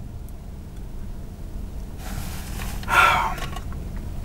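A man's short sigh or exhale about three seconds in, over a steady low rumble in a car's cabin.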